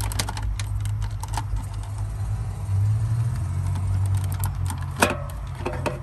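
Plastic clicks and rattles as a dashboard climate control panel and its wiring connector are worked loose by hand, with one sharp click about five seconds in. Under them runs a steady low hum.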